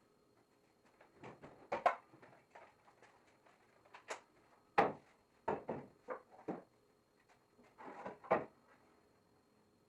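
Wooden boards being handled and set in place: a string of separate knocks and clunks, the loudest about two, five and eight seconds in.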